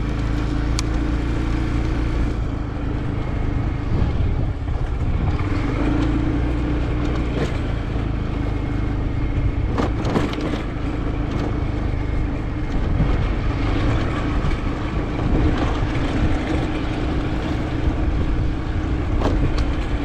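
Motorbike engine running as it is ridden along at a steady pace, a steady hum over a heavy low rumble.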